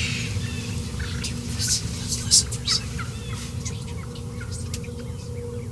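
Wild turkeys gobbling, with small birds chirping in the background; the calls are loudest twice, about a second and a half and two and a half seconds in.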